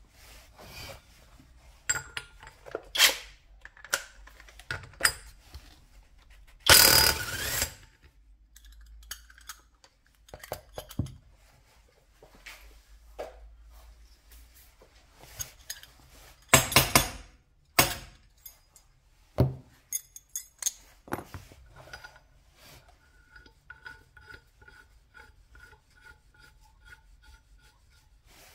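Workshop handling sounds at a workbench: scraping, rubbing and knocks of tools and engine parts, with two loud scrapes about a second long, one a quarter of the way in and one past the middle. In the last few seconds there is a faint, even ticking, about two to three a second.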